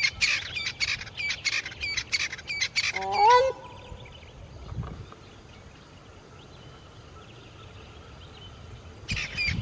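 A grey crowned crane gives one short, loud, rising honk about three seconds in, over another bird's fast run of high, repeated calls. The high calls stop right after the honk, leaving a quieter stretch with faint bird calls, and start again near the end.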